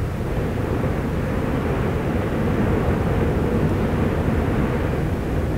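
Steady low rumbling roar of the erupting Fagradalsfjall volcano, its crater full of churning lava.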